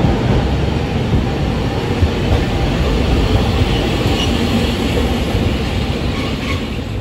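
Hiroden 700-series streetcar passing close by on street track, its steel wheels running on the rails with a steady low rumble. Faint brief squeaks come from the wheels about four seconds in and again near the end.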